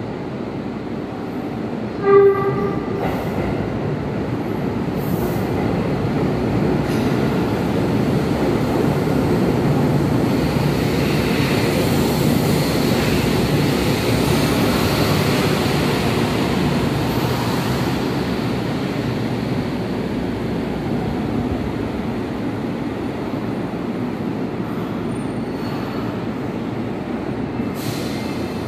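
Sendai Subway Namboku Line 1000-series train arriving at an underground station: a short horn blast about two seconds in as it comes out of the tunnel, then the rumble of the train running in alongside the platform, growing loudest midway and easing off as it slows to a stop.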